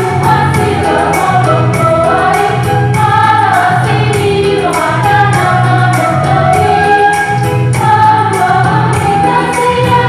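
A mixed church youth choir of young women and men singing a praise song in several voices, over a steady beat from the accompaniment.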